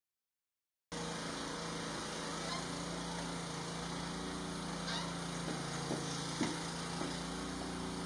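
A motor vehicle's engine running steadily with a constant low hum, starting abruptly about a second in after a moment of silence.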